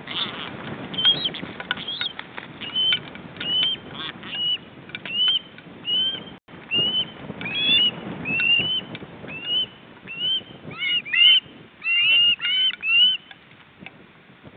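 Osprey calling over and over: short, high, whistled calls that rise and fall, about one and a half a second, coming quicker and doubled near the end before stopping shortly before the end. Wing flaps and a rustling of the nest sticks sound underneath, strongest at the start and again about halfway through.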